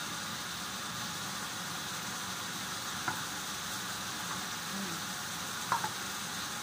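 Chicken pieces sizzling steadily in a frying pan. A sharp click comes about three seconds in and two more come close together near the end, as a tin can is opened with a hand can opener.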